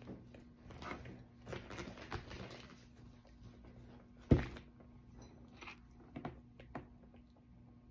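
Soft chewing of a bread roll, with one sharp knock about four seconds in and a few lighter clicks after it, over a faint steady hum.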